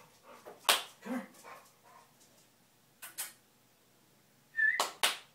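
Pit bull giving several short, sharp barks in small clusters, with a brief high-pitched note just before the last pair.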